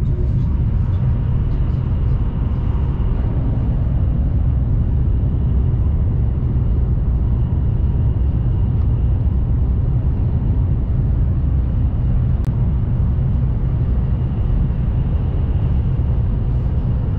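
Steady low rumble of a Chinese high-speed train running at speed, heard inside the passenger cabin, with a faint steady whine above it. One faint click about twelve seconds in.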